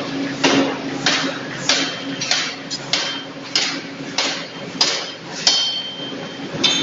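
Large forging hammer striking a red-hot steel blank, with repeated heavy blows about one every half-second to two-thirds of a second. A steady machine hum runs beneath the blows.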